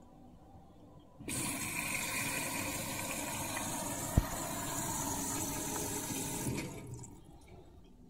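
Bosch Maxx 7 VarioPerfect washing machine taking in water: a steady rush of water starts suddenly about a second in, runs for about five seconds and cuts off as the inlet valve shuts, with one sharp click midway.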